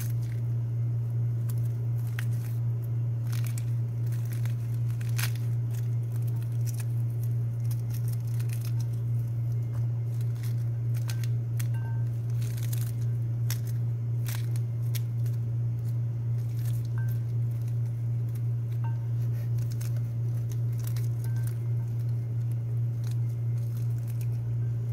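Pomegranate being picked apart by hand, arils pulled from the peel: scattered small clicks and tearing of the peel. A steady low hum runs under it and is the loudest sound.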